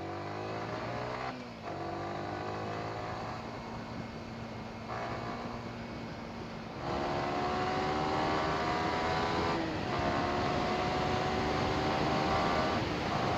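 Yamaha R15 single-cylinder motorcycle engine accelerating hard through the gears: the pitch climbs in each gear and drops sharply at several upshifts. There is a steady rush of wind noise on the helmet-mounted headset mic.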